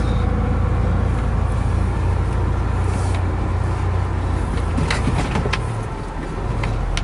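Diesel engine of a semi-truck running steadily, heard from inside the cab while driving, with a few sharp clicks and a shift in the engine note about two-thirds of the way in.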